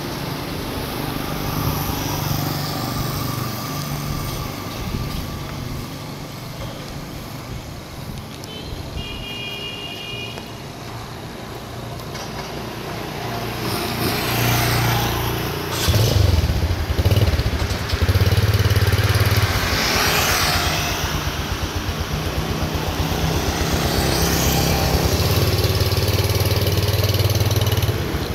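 Street traffic with motorbikes and other vehicles passing, engine noise swelling and fading several times in the second half over a steady low rumble. A brief high tone sounds about nine seconds in.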